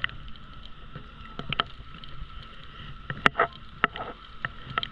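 Small sea waves lapping and splashing against a camera held at the water's surface, with irregular sharp clicks of water slapping it; the loudest slap comes about three seconds in.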